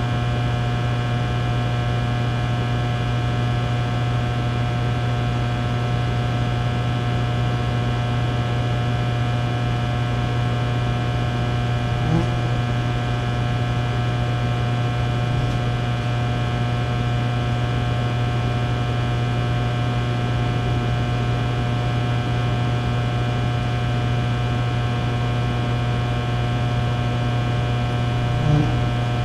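Fluorescent lights humming steadily with a low electrical buzz. A fly buzzes briefly twice, about twelve seconds in and again near the end.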